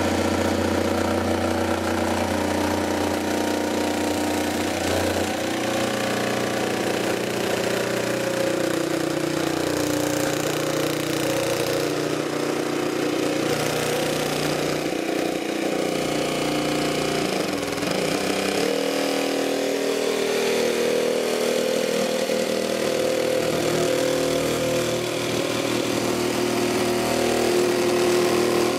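Makita JV001G 40V XGT brushless barrel-grip jigsaw running non-stop while cutting plywood along a marked line. Its tone shifts a few times as the cut goes on.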